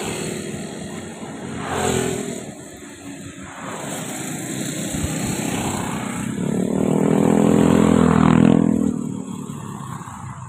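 An engine passes by: it grows louder from about six seconds in, is loudest near eight and a half seconds, then fades away.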